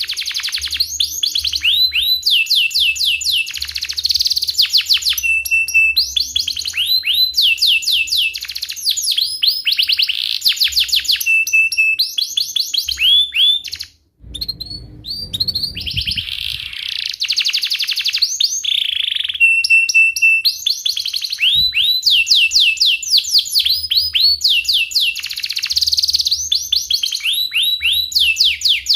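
Domestic canary in full song: fast rolling trills of rapidly repeated, falling chirps, with short held notes between them. The song breaks off for a moment about halfway through, then carries on.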